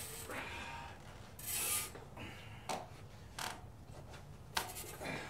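A gloved hand rubbing and scraping a sawmill's bandsaw blade as it is pushed into line on the wheel, with one louder scrape about a second and a half in and a few sharp clicks later on.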